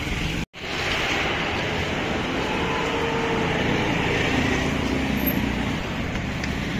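Street traffic noise: a steady hum of passing vehicles and engines. It cuts out completely for an instant about half a second in.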